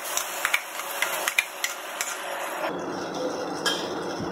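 A steel spoon scraping and knocking against a mixer-grinder jar as thick ground masala paste is emptied into an aluminium pot: a run of short clicks and scrapes, thinning out after about two and a half seconds, over a steady hiss.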